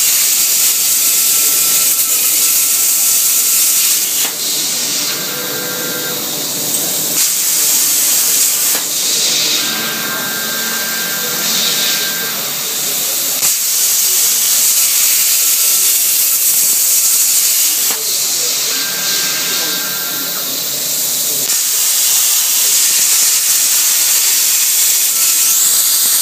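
CNC plasma cutter's arc cutting through 3 mm steel plate: a loud, steady hiss whose brightness shifts every few seconds as the torch moves. Faint thin whines come and go over it.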